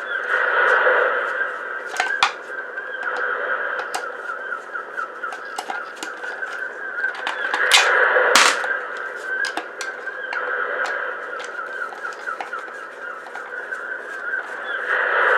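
Sharp clicks and knocks of small parts being handled during disassembly, two of them louder about eight seconds in, over a steady background of bird calls that swells every few seconds.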